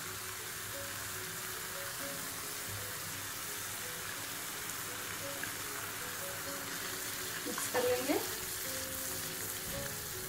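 Tomato-onion gravy sizzling steadily in butter and oil in a pan while a thick nut paste is added. About eight seconds in there are a few brief louder scrapes of a silicone spatula against the bowl and pan.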